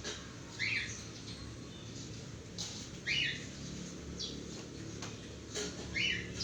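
A bird giving short falling chirps, three times about three seconds apart, with soft rustling between them.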